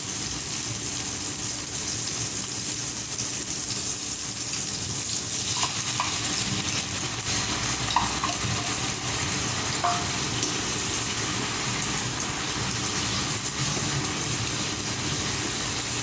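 Dried anchovies, shallots, garlic and chili sizzling in hot oil in a pan while being stir-fried, with a few short scrapes and knocks of the spatula against the pan.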